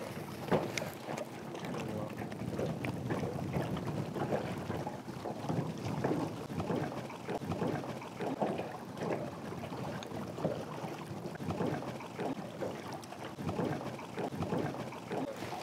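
Water lapping against the hull of a small fishing boat in uneven little splashes, with wind buffeting the microphone.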